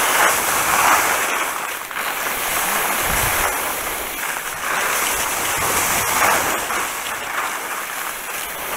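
Skis hissing over wet, rain-soaked snow, swelling with each turn every one to two seconds, over a steady rush of rain and air on the head-mounted camera's microphone. A brief low rumble comes about three seconds in.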